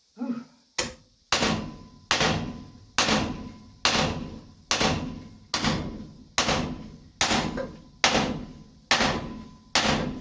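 Hand hammer striking hot steel on an anvil while forging a knife blank, drawing the steel out. The blows come at a steady pace of a little over one a second, about a dozen in all, each ringing briefly.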